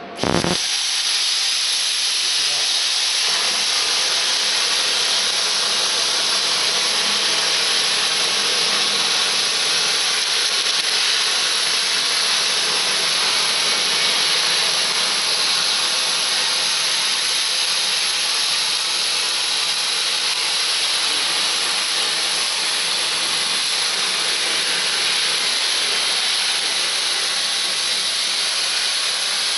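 CNC plasma cutting torch firing with a sharp crack and then hissing loudly and steadily while it cuts.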